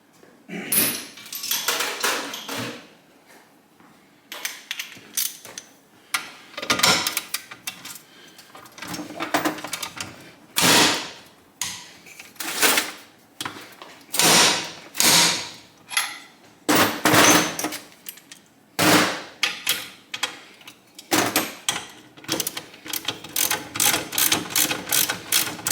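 Ratchet wrench with a 22 mm socket clicking on an engine bolt, worked in repeated strokes of about a second each; near the end the clicks come quickly and evenly.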